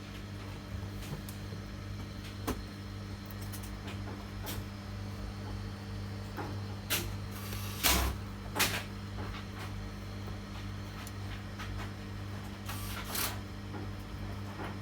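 A steady low electrical hum with scattered clicks, knocks and clatter of things being handled on a workbench, loudest in a couple of quick clusters just past the middle and again near the end.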